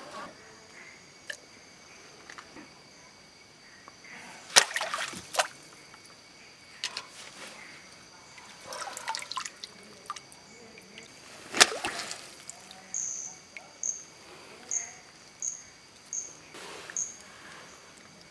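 Hands splashing and scooping in shallow stream water while catching small fish, with a few sharp splashes and trickling between them. Insects trill steadily in the background, and from about two-thirds of the way in one chirps a little more than once a second.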